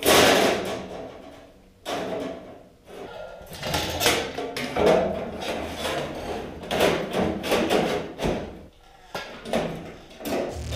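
Sheet-metal work on a steel body panel: a run of sharp metallic knocks and scraping as the panel is handled and fitted.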